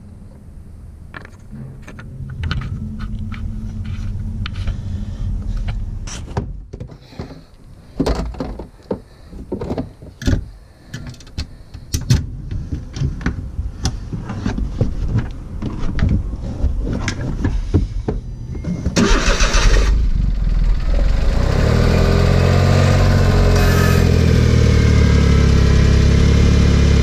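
Irregular knocks and clatter, then about 19 s in the 2008 Smart car's rear-mounted three-cylinder engine cranks briefly, starts and settles into a steady idle after its oil change.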